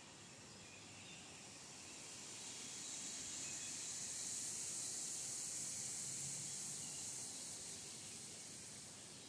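A high, hissing insect buzz that swells over a few seconds and then fades away, over faint woodland background.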